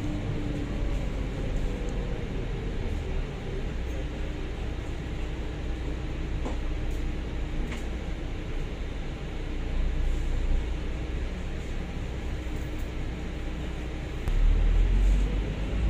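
Volvo B9TL double-decker bus's Volvo D9A diesel engine and Voith DIWA automatic gearbox running under way, a steady low drone with a steady hum above it, heard from inside the upper deck. The low engine drone grows louder near the end.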